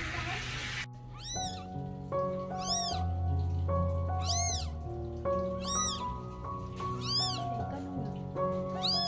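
Newborn kitten crying: a high-pitched mew that rises and falls in pitch, six times, about every second and a half. A hiss cuts off just under a second in.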